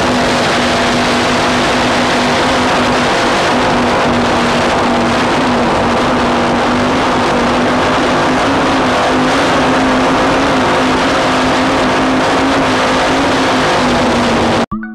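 Race powerboat running at full speed, heard from a camera mounted on its deck: a steady engine note under a loud rush of wind and water. It cuts off suddenly near the end.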